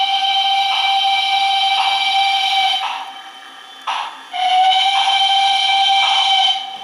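DCC sound decoder of an H0-scale Jouef 141R model steam locomotive sounding two long steam-whistle blasts: the first stops about three seconds in, the second starts about four seconds in and lasts over two seconds. Under the whistle, slow exhaust chuffs come about once a second.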